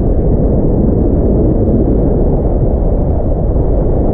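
Wind buffeting the camera's microphone in the airflow of a paraglider in flight: a loud, steady, low rumble with no break.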